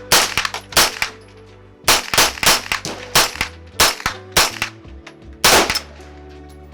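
Scoped semi-automatic carbine fed from a Glock magazine firing about a dozen shots: two near the start, a quick string of roughly three a second in the middle, and one last shot near the end. Background music plays under the shots.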